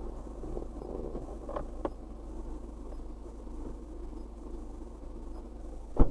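Steady low hum of an idling engine heard from inside a car, with two faint clicks about a second and a half in and a sharp, loud knock at the very end.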